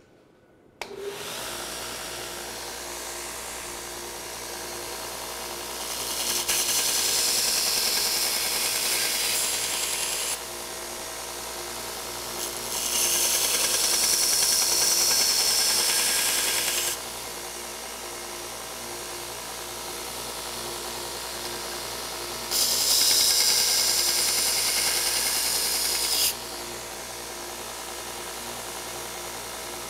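Knife belt grinder converted with a 2x72 mod kit, switched on about a second in and running steadily. Three times a knife blade is ground against the 100-grit belt, each pass a loud grinding scrape of about four seconds over the motor's steady run.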